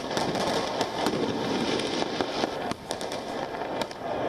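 Fireworks going off in a street, many sharp cracks and pops at irregular intervals over a steady noisy background.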